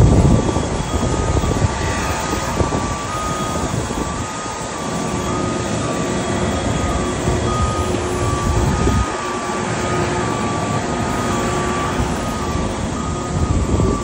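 Steady apron noise from a parked jet airliner and its ground equipment, with a faint high whine that wavers slightly in pitch at an even pace. Gusts of wind buffet the microphone, most strongly at the very start and again about nine seconds in.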